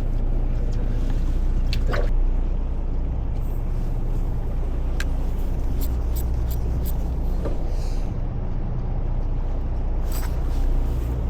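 Fishing boat's inboard engine running steadily, a low even drone, with a few light clicks and knocks over it.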